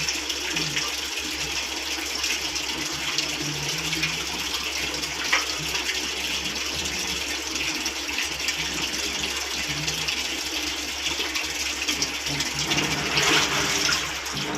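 Water running steadily into a Midea 6.5 kg washing machine's tub as it fills, getting a little louder near the end. The machine is working again now that its pressure pipe is back in place.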